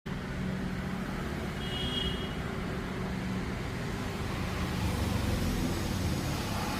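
Hyundai i20 on the move: steady engine and road noise with a low rumble, and a brief high squeak about two seconds in.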